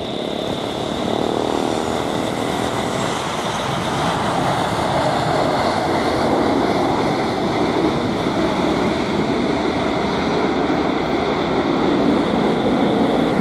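Airbus A321-231's twin IAE V2500 jet engines running at high power on the takeoff roll, a steady noise slowly growing louder, with a thin high whine over it.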